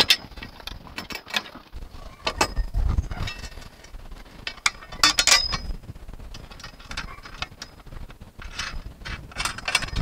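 Irregular metallic clicks and clinks, in short clusters, as the clamp on the end of an aluminium antenna mast tube is handled and fitted against roof tiles.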